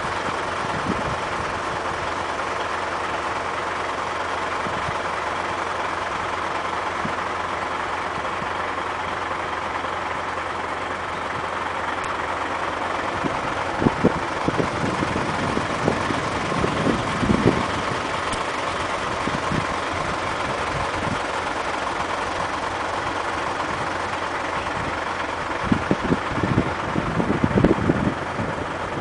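Dump truck's diesel engine running steadily. Clusters of knocks and rattles come about halfway through and again near the end.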